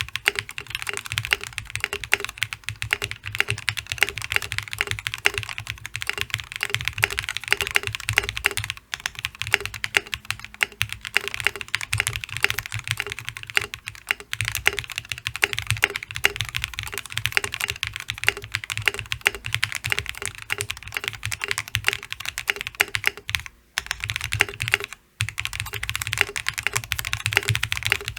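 Continuous fast typing on a Gray Studio Space65 custom mechanical keyboard with lubed Durock POM linear switches, an FR4 plate, case foam and Infinikey keycaps. A rapid, dense stream of keystrokes with brief pauses about nine seconds in and twice near the end.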